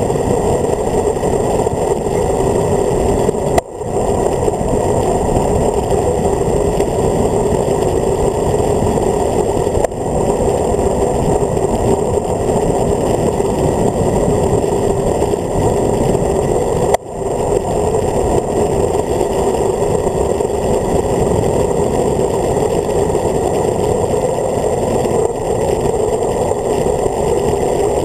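Wind noise on a handlebar-mounted camera on a road bike descending at speed: a loud, steady rush that briefly cuts out twice.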